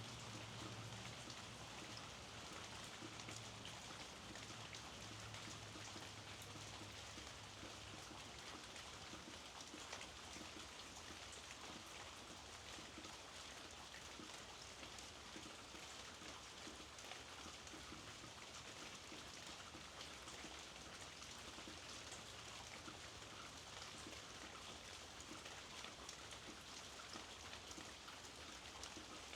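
Steady rain falling, with a dense pattering of fine drops on surfaces.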